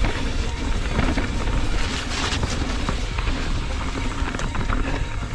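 Knolly Chilcotin mountain bike descending a dirt trail at speed: tyres rolling over packed dirt and roots, with chain and frame clatter and short knocks over bumps. Wind on the action camera's microphone, with a louder gusty patch about two seconds in.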